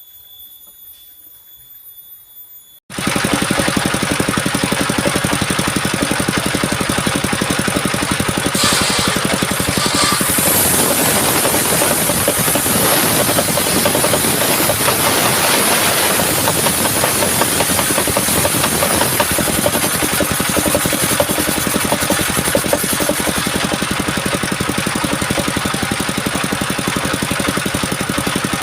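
After about three seconds of faint, steady high tones, a loud engine cuts in suddenly and runs steadily with a fast knocking rhythm.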